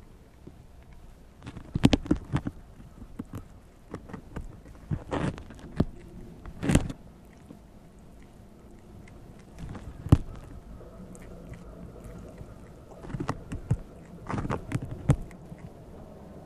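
Prairie dog gnawing at an unhusked ear of corn: irregular crisp bites and crunches in clusters, with quieter pauses between them.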